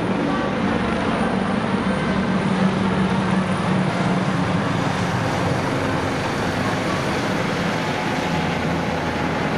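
A formation of red fire department helicopters, large Super Puma types and smaller Dauphin types, flying low overhead. Their rotor and turbine noise is a steady, loud drone with a low hum that is strongest in the first few seconds.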